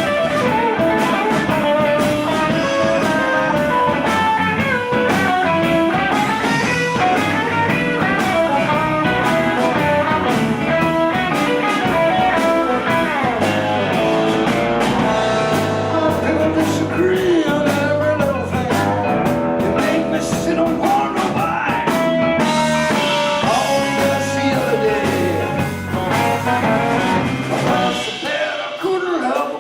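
Live blues band playing an instrumental break: a guitar leads with bending notes over bass and drums. The bass and drums drop back briefly near the end.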